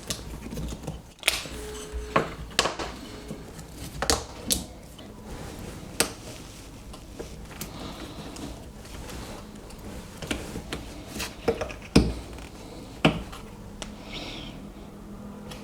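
Irregular sharp clicks, knocks and scrapes of hand tools prying apart a 9-volt battery's metal casing, the loudest knock about twelve seconds in.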